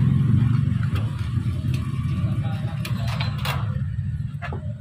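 Electric fan motor with a rewound or repaired winding running, giving a steady low hum, with several light clicks and knocks from handling.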